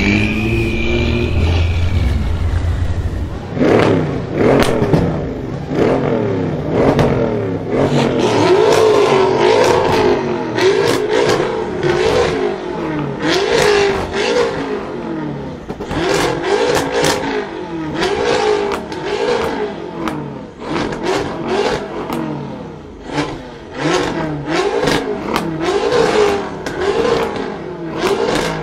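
BMW M6 Gran Coupé's twin-turbo V8 through a custom Eisenmann exhaust. It is revved over and over while standing, pitch rising and falling about once a second, with sharp pops and bangs from the exhaust between revs. In the first few seconds there is only a low rumble before the revving starts.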